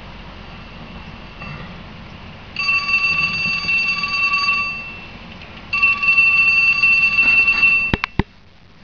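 A high electronic alarm tone sounds twice, each time for about two seconds, with a short gap between. Two sharp clicks follow near the end.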